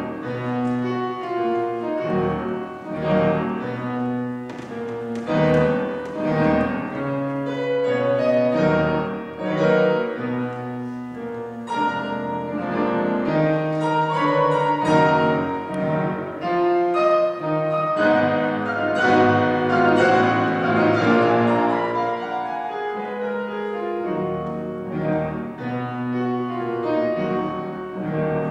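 Grand piano played four hands by two pianists: a classical piano duet with full chords in bass and treble, swelling and easing in loudness.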